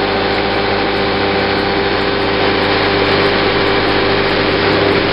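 Outboard motor on a small fishing boat running steadily at speed, a constant drone that holds one pitch throughout.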